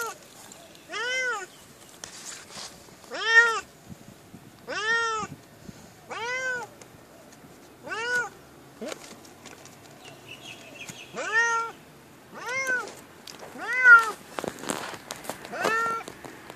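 Domestic cat meowing over and over from inside its pet carrier: about ten loud calls, each rising then falling in pitch, with a pause of a few seconds in the middle.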